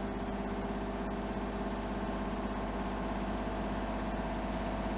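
Kubota mini excavator's diesel engine running steadily while a hydraulic control lever is worked.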